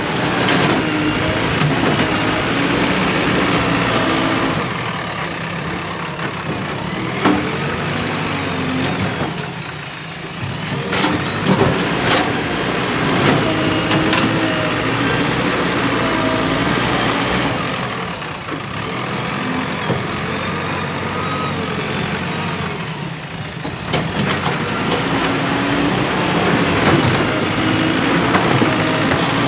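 JCB 3DX Plus backhoe loader's diesel engine running while the machine works, its revs rising and falling in surges, with a few sharp knocks.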